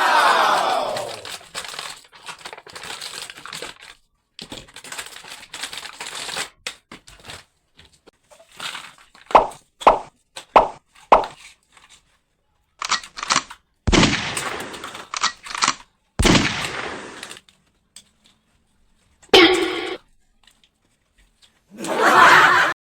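Handling of a plastic toy gun and its packaging: scattered clicks, knocks and crinkling. A few short pitched sounds fall between them, including a falling sweep at the start and four quick bursts around the middle.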